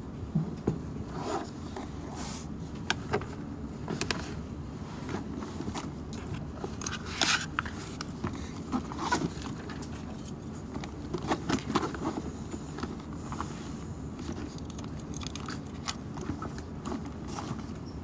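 Books and belongings being handled and packed up at a desk: scattered soft knocks, taps and rustles over a steady low room hum.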